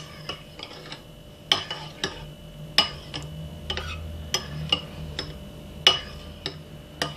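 Metal spoon stirring thick yogurt in a ceramic bowl, clinking against the bowl's side at irregular intervals, about eight times.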